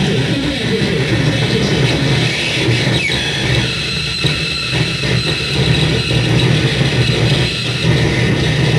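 Loud, dense noise drone from a tabletop chain of guitar effects pedals as their knobs are turned, with a pitch sweeping downward about three seconds in.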